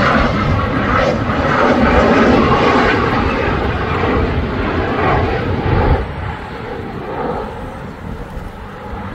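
Jet engine noise of a Mitsubishi F-2 fighter passing overhead on approach with its landing gear down: a loud, steady rush that drops sharply about six seconds in and carries on quieter.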